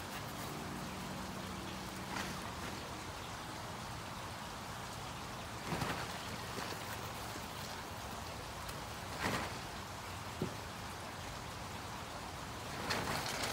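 Several brief scuffs and scrabbles of labradoodles' paws on gravel and concrete, spread through a steady hiss.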